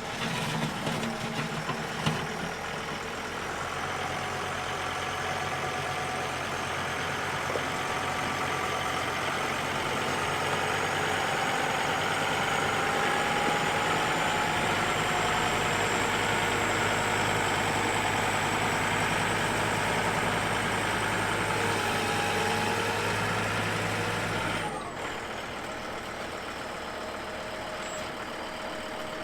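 A two-wheel-drive John Deere tractor's engine running steadily as its front-loader bucket scrapes mud and manure off a feed pad. The engine grows gradually louder through the middle, then drops off suddenly near the end.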